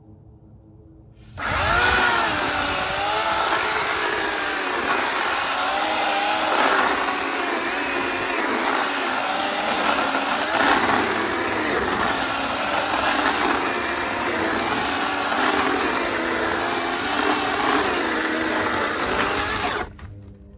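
Homelite 14-inch 9-amp electric chainsaw cutting through a fallen locust limb. The motor starts abruptly about a second in, its pitch dipping and rising as the chain works through the wood, and stops sharply near the end.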